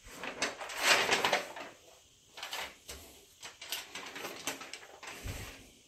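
Soft, irregular rustling and clicking noises, with a short dull thump near the end.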